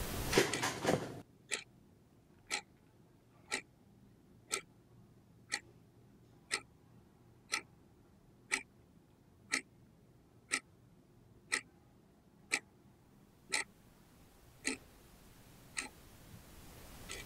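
Steady clock-like ticking, one sharp tick a second, about fifteen in all. A short jumble of clicks and rustle comes first, in the opening second.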